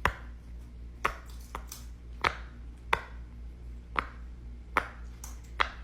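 Silicone pop-it fidget toy pressed on its loud side: about eight sharp pops, spaced half a second to a second apart, as the bubbles are pushed through one by one.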